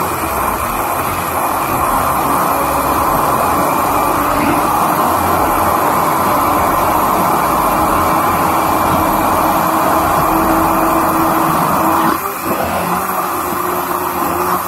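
Electric hand blender running steadily in a cup, puréeing mango pieces with water and sugar, with a steady motor whine. Its sound dips briefly near the end, then carries on.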